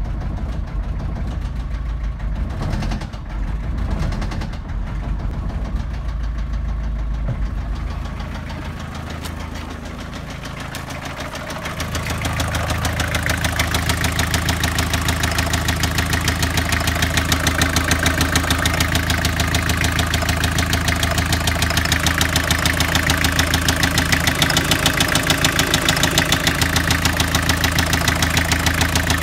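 Opel Movano's 2.5-litre S8U diesel engine idling with a steady, even clatter. For the first dozen seconds it is heard muffled from inside the cab, then much louder and sharper with the bonnet open.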